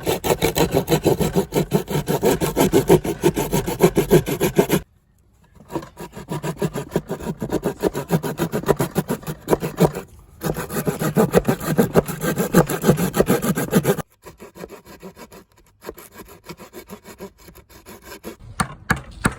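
Hand saw cutting through wood with quick back-and-forth strokes, pausing briefly about five and ten seconds in, then continuing more softly near the end with a few sharp clicks.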